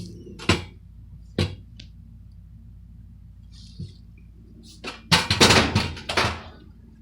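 Several separate knocks, then a louder burst of knocking and rustling handling noise about five seconds in, over a faint steady low hum.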